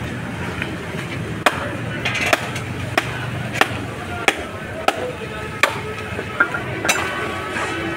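Wooden stick beating a large catfish down onto a boti blade to chop through it: a steady run of sharp knocks, about one every two-thirds of a second, starting about a second and a half in.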